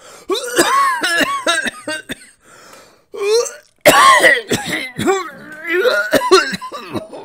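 A person's loud wordless vocal noises: throat clearing and coughs mixed with short pitched calls that rise and fall, in several bursts with brief pauses.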